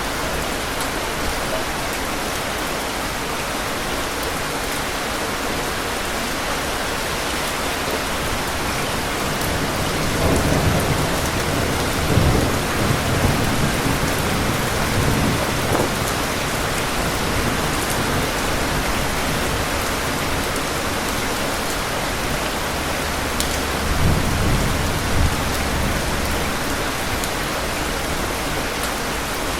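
Steady rain falling, with thunder rumbling twice: a long, rolling rumble from about a third of the way in, and a shorter one near the end.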